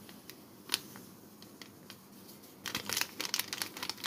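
Instant yeast being poured from its sachet into a glass tumbler: a few light ticks at first, then a dense crackle of clicks for the last second or so as the packet is emptied.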